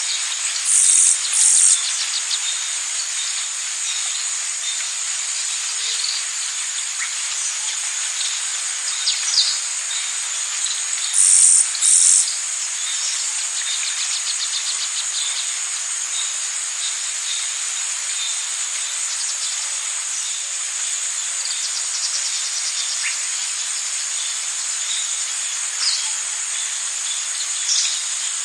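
Rainforest insect chorus: a steady, high-pitched shrill drone, with scattered short bird chirps. Two loud doubled buzzing calls stand out, one about a second in and another about eleven seconds in.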